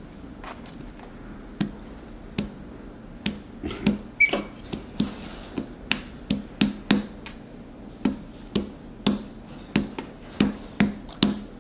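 Irregular light taps and knocks on a tabletop, more frequent after the first few seconds, as a capuchin monkey pats and presses a lump of Play-Doh with its hands.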